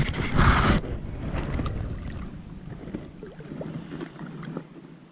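Wind on the microphone over open water from a kayak. There is a loud rush in the first second, then a quieter rustle with a few faint knocks.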